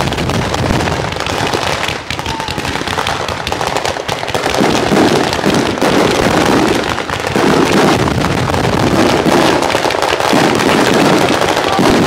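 Bolognese firework battery going off in a dense, unbroken barrage of firecracker bangs and shell bursts, growing louder about four seconds in.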